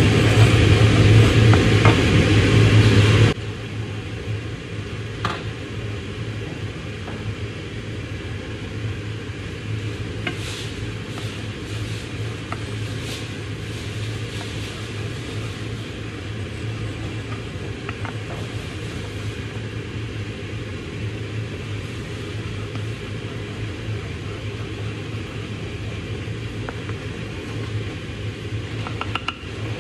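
Kitchen extractor fan running with a steady hum; the noise drops sharply to a quieter level about three seconds in. Faint ticks come from a wooden spoon stirring hot oil in a frying pan.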